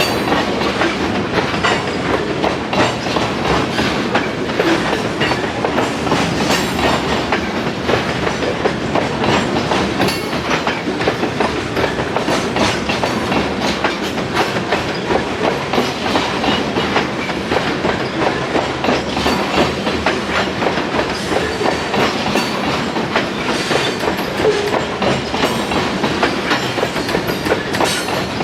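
Freight train cars rolling past, their steel wheels clicking steadily over rail joints in a continuous clatter.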